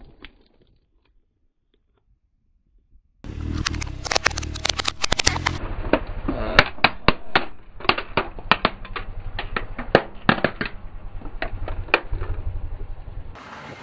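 Hard plastic crocodile toy cracking and snapping apart under a slowly rolling car tyre: after a short silence, a dense run of sharp cracks over a low rumble starts about three seconds in and thins out near the end.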